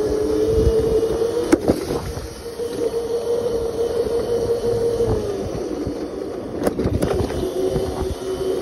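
Razor electric mini dirt bike's motor whining at a steady pitch while riding, the pitch dropping a little about five seconds in as it slows, over wind and road rumble. A few sharp knocks come through, twice close together near the end.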